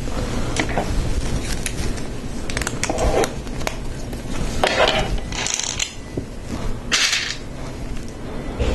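Plastic Lego Technic pieces clicking and clattering as parts are handled and fitted together, with a few short scraping, rustling sounds in between.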